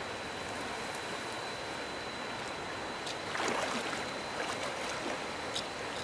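Steady rush of flowing river water, with a brief louder swish of water about three and a half seconds in.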